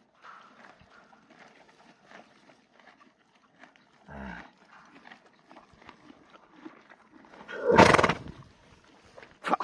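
A pet animal sneezing: one loud, explosive sneeze about three-quarters of the way through, then a second, shorter burst near the end.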